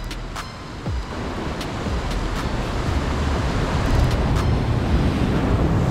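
Surf washing in and breaking against the jetty's boulders, with wind rumbling on the microphone. The rush grows louder over the first few seconds, and a few small clicks sit on top.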